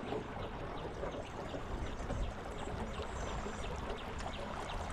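Water trickling and gurgling steadily against the hull of a small boat moving on the river, under a low rumble.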